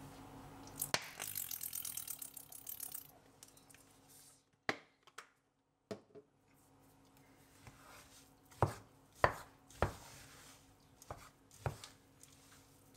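Kitchen utensils knocking and clinking against a mixing bowl while a muesli bar mass is prepared: a click and a short high rustle near the start, then a series of about eight sharp knocks, most of them in the second half.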